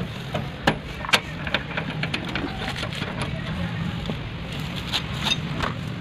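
Several sharp metallic clicks and taps of a brass flare nut and copper pipe being handled and fitted at an air conditioner's outdoor-unit service valve, the loudest in the first second or so, over a steady background hum.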